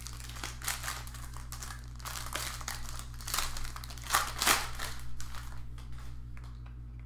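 Crinkling and rustling of plastic card packaging as trading cards are handled, with irregular small crackles and a few louder rustles.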